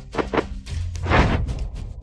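Dramatic film score with a steady deep bass, overlaid with swelling whoosh effects: two quick ones early and a bigger one just past the middle.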